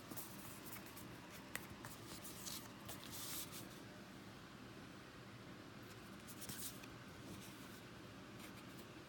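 Paper being handled: short bursts of soft scraping and rustling as a printed booklet and its packaging are moved, with one sharp click about a second and a half in.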